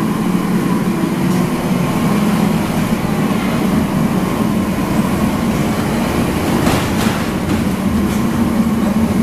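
Steady, loud mechanical drone of commercial kitchen equipment, with a brief clatter about seven seconds in.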